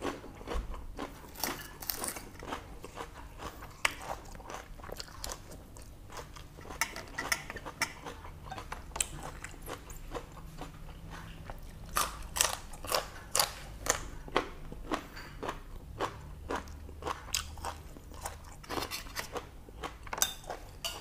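A person chewing and crunching a mouthful of boiled pork intestines and raw greens: many quick, wet clicks and crunches, busiest from about twelve seconds in.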